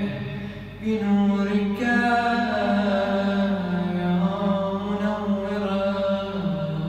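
A man's solo voice chanting an Arabic Ramadan supplication (du'a) in long, melodic held notes. There is a short pause for breath a little over half a second in.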